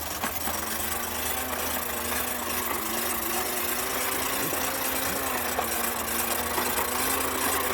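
Toy bubble lawn mower's small electric motor running with a steady buzzing hum.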